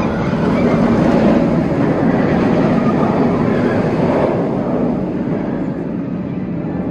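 Inverted steel roller coaster train rushing along its track overhead, a steady roar that thins and fades after about four seconds.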